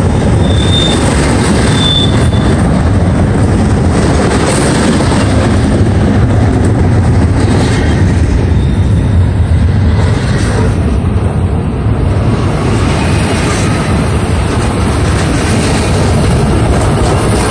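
Intermodal freight train rolling past close by, double-stack container well cars and trailer-carrying flatcars: a loud, steady rumble of steel wheels on the rails.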